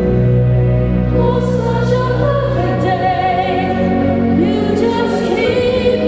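Female solo singer performing a slow ballad into a microphone over instrumental accompaniment, holding a long note with vibrato about three seconds in, with a children's choir singing along behind her.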